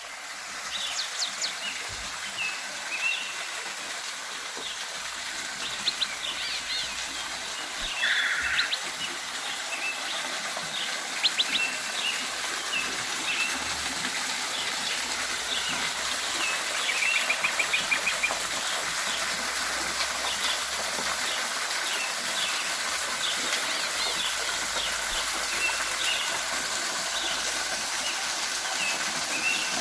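Steady rush of a waterfall, with many small birds chirping and trilling over it throughout.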